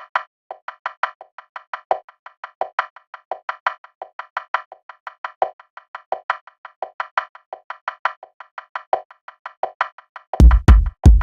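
Techno track intro: a fast, even pattern of short, dry synthesized clicks, about six or seven a second. About ten seconds in, a heavy drum-machine kick and bass come in.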